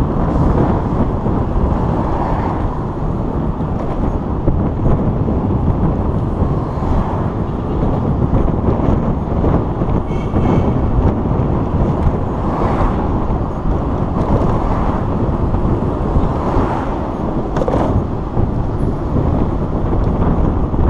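Steady rumble of street traffic, loud and without a break.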